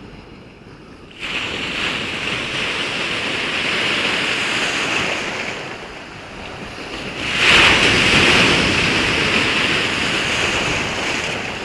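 Sea waves surging and washing in two swells, the first rising suddenly about a second in and a louder one a little past halfway.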